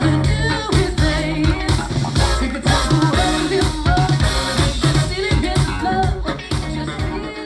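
Pop song with a steady drum-kit beat, bass and singing.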